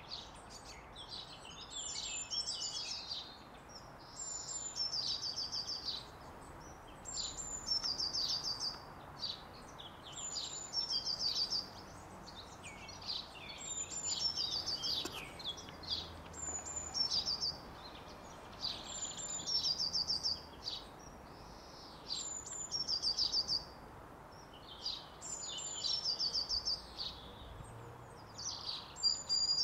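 A garden songbird singing the same short, high phrase over and over, about every three seconds, each time ending in a quick run of repeated notes, with other chirping between. Underneath is a steady outdoor background hiss.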